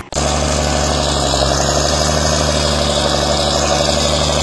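John Deere motor grader's diesel engine running steadily with an even, unchanging hum, after a brief dropout at the very start.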